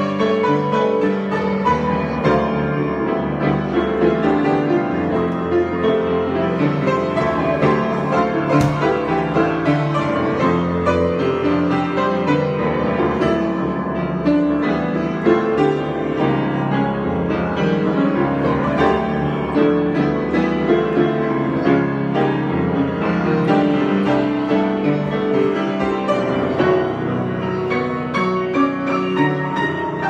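Grand piano played solo, an improvisation going on without a break, with many notes and chords sounding together.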